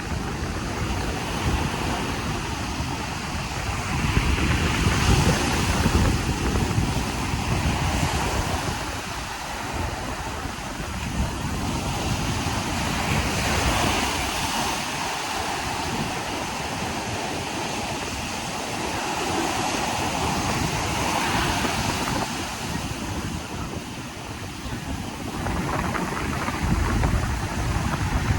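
Sea surf breaking and washing up a sandy beach, swelling and easing about every seven or eight seconds, with a low rumble of wind on the microphone.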